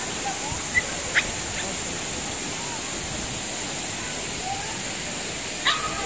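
Steady rushing of a tall waterfall plunging into its pool. A few short, sharp high calls cut through it about a second in and again near the end.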